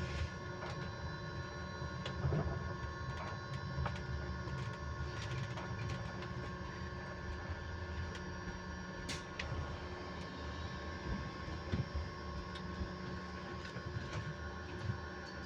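Electric bus giving off a steady whine on a constant pitch, several high tones held level, over the low rumble of the bus on the road, with scattered short rattles and clicks.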